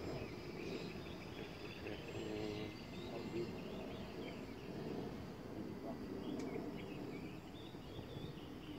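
Faint outdoor background: small birds chirping now and then over low, indistinct voices.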